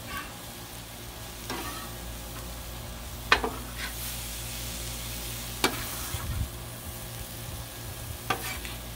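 Fish fillets and diced vegetables sizzling steadily on a Blackstone flat-top griddle. A metal spatula scrapes and clicks against the steel cooktop about four times, a couple of seconds apart, as the vegetables are stirred.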